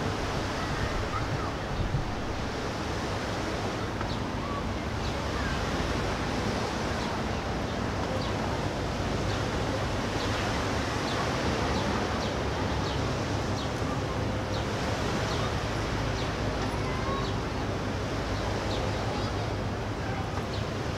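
Steady outdoor harbour ambience: an even rushing noise with a faint low hum underneath and scattered faint high ticks.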